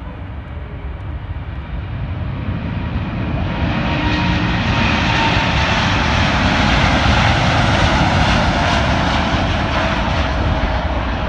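Jet engines of a four-engine Boeing 747 freighter at takeoff thrust, growing louder over the first few seconds as the aircraft speeds down the runway toward and past the listener, then holding loud as it rotates for liftoff.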